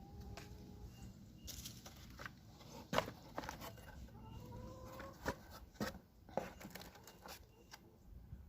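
Sharp clicks and light crinkling from fishing-lure packaging and tackle being handled, the loudest click about three seconds in. A few faint drawn-out animal calls sound in the background.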